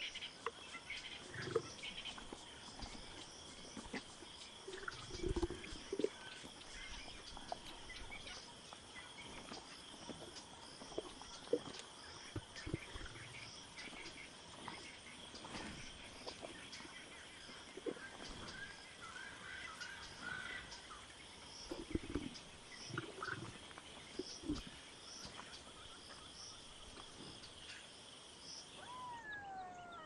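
Lions at a buffalo carcass giving occasional short, low growls over a steady high insect drone; the drone stops shortly before the end.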